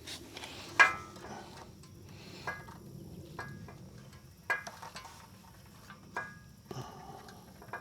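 Scattered sharp clicks and light metallic taps from working a wire connector loose on a small engine's ignition coil lead. The loudest click comes about a second in.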